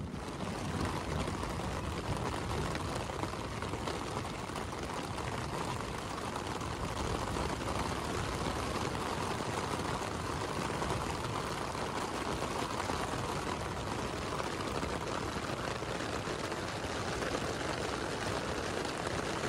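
Heavy rain and wind beating steadily on a camping tent in a thunderstorm, heard from inside the tent.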